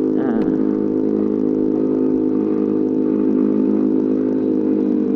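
Yamaha NMAX scooter's single-cylinder engine running at steady revs through a holed, leaky exhaust that makes it loud. There is a brief click about half a second in.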